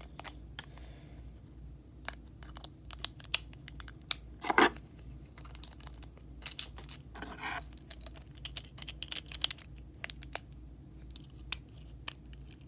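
Small sharp clicks and taps of a Hot Wheels diecast car's body, base and wheels being handled and fitted back together, with two short scrapes, one about four and a half seconds in and one a little past seven seconds.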